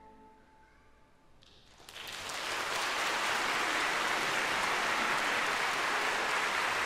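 The choir's last held chord dies away, and after a short hush a large audience breaks into applause about two seconds in, quickly building to steady clapping.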